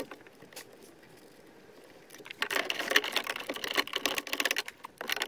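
A ratchet spanner clicking rapidly as it undoes a 10mm bolt, starting about two seconds in, with some rattling.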